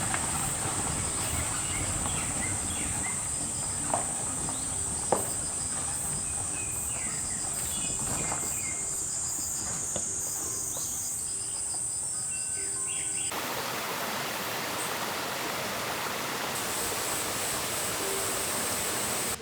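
Forest ambience: insects trilling in a steady high-pitched drone, with scattered bird chirps and two sharp knocks about four and five seconds in. About two-thirds of the way through it cuts to a steady, even rushing hiss.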